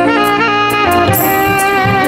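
Music: a song with a wavering lead melody over a steady drum beat and bass.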